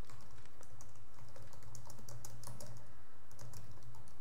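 Typing on a computer keyboard: a quick, irregular run of keystroke clicks over a steady low hum.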